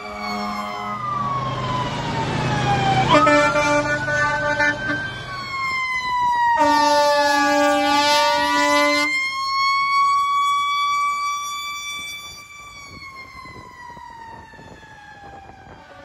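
Fire apparatus sirens wailing, rising and falling in pitch, with two long horn blasts from the fire trucks, about three and about six and a half seconds in. The sirens carry on more quietly after about twelve seconds.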